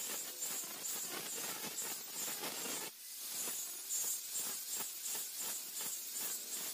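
Angle grinder with an abrasive disc grinding the flat of a chainsaw-bar steel machete blank, a steady hissing rasp. There is a short break about three seconds in.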